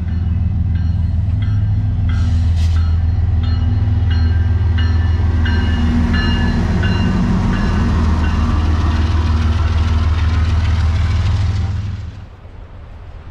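A train passing: a heavy, steady low rumble with a short ringing tone repeating about one and a half times a second. It cuts off sharply near the end.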